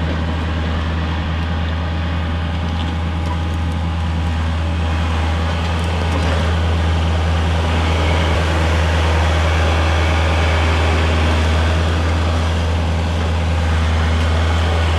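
Vehicle engine running steadily with an even low drone while travelling.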